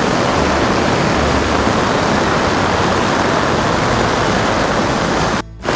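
Floodwater rushing hard down a swollen hillside creek, a loud, steady roar of water that cuts out briefly near the end.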